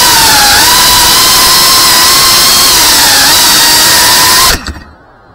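FPV freestyle quadcopter's brushless motors and propellers, heard from the camera on the drone itself: a loud, high whine over a rushing noise, its pitch wavering as the throttle shifts. The whine cuts off suddenly near the end.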